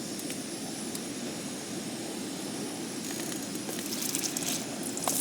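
Steady rushing roar of a gas camping burner under a pan, with a hissing sizzle of food frying growing louder near the end.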